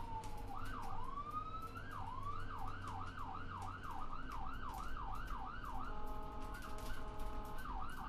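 Electronic siren: a tone falling in pitch for about half a second, then a couple of slow up-and-down sweeps. From about two seconds in it switches to a fast yelp of about three sweeps a second. Near the end it changes to a steady blare of several tones at once.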